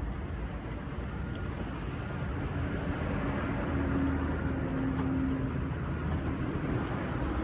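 A car running: a steady low rumble that grows a little louder a few seconds in, with a faint steady hum in the middle.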